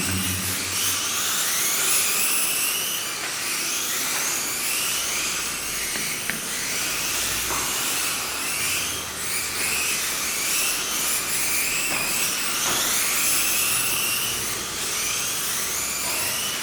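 Small electric motors of Kyosho Mini-Z 1:28-scale RC cars whining on the track, their pitch rising again and again as the cars accelerate. Several cars overlap.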